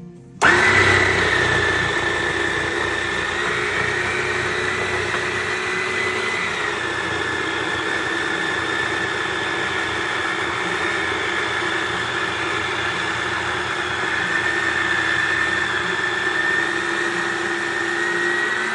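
Electric frozen-fruit soft-serve maker switched on about half a second in, its motor running with a steady whine as it churns frozen banana into vegan 'ice cream'; the pitch steps slightly lower about six seconds in.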